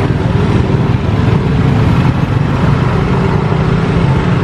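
Loud, steady rumble of passing vehicles.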